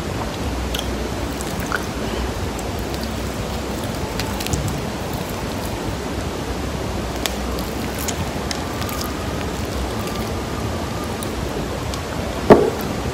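Steady hiss of a high-gain, close-placed microphone, with faint scattered clicks and one loud, sharp click near the end.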